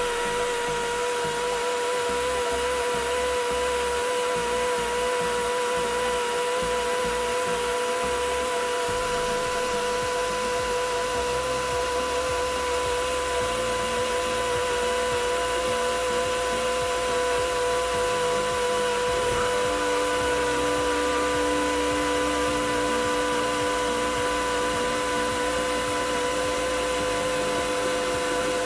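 The air motor of a Dodds C48J drawer clamp runs steadily with an even whine, driving the ball screw as the clamp column travels closed. About two-thirds of the way in, a lower steady hum joins in as the shop's Quincy rotary screw air compressor starts up.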